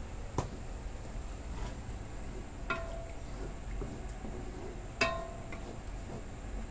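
A wooden spatula stirring mung bean stew in a stainless steel wok and knocking against the pan. There is a light tap soon after the start, then two knocks that each leave a short metallic ring. The second knock, about five seconds in, is the loudest.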